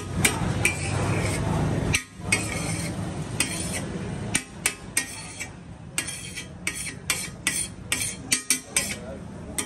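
Metal spatula clinking and scraping against a large flat steel tawa griddle as fried egg-and-vegetable mixture is scooped up, a run of sharp taps that comes thickest in the second half.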